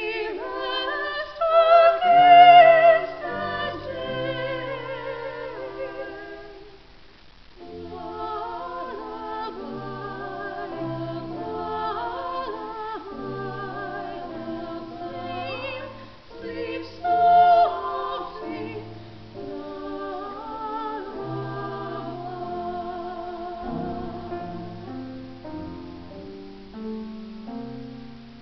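A small group of women singing a slow carol in parts, their voices wavering with vibrato over low steady notes. The singing swells twice on high notes, pauses briefly about seven seconds in, and closes on a low held note near the end.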